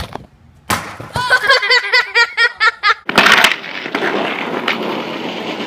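A person laughing in a quick run of repeated bursts, then a skateboard clattering on concrete about three seconds in and its wheels rolling with scattered clicks.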